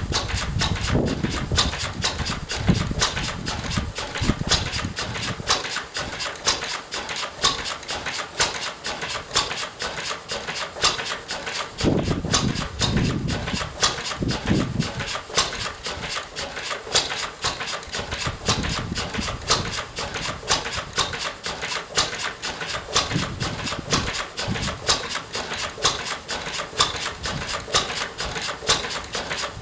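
Vintage Lister stationary engine running on its own, with a rapid, steady clatter of valve gear and heavier low thumps at uneven intervals of a second or two.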